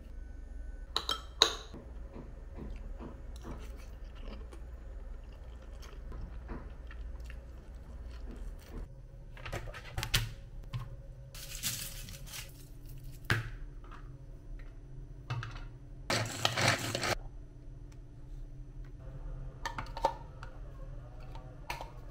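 Kitchen food-prep handling sounds: scattered taps and clicks of bowls and plastic containers on a countertop, with a couple of longer rustling bursts, one about halfway through as a garlic bulb is peeled.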